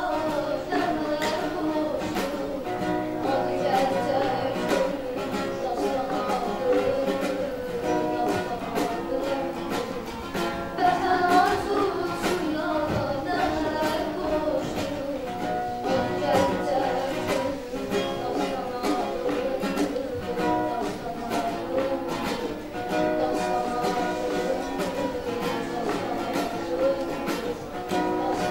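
A young girl singing a song to an acoustic guitar accompaniment, the guitar played in a steady rhythm under her voice.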